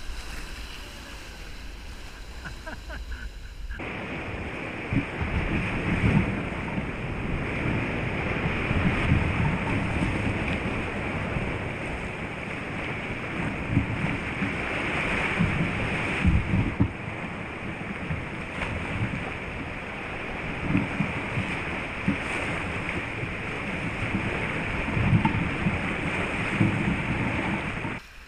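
Sea surf surging and washing around rocks as a sea kayak is paddled through, with wind buffeting the camera microphone in irregular low gusts. The first few seconds are quieter, then a cut brings a loud, steady rushing noise that stops abruptly near the end.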